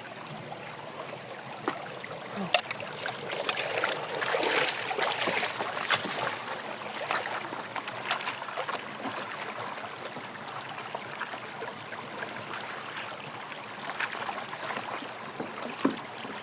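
Running water rushing and splashing, with scattered small splashes or knocks. It gets louder and busier from about three to seven seconds in.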